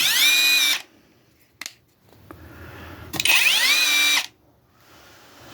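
Cordless 3/8-inch-drive impact driver run with no load in two short trigger pulls. Each time the motor spins up with a rising whine, holds a steady pitch for about a second and stops. There is a single click between the two runs.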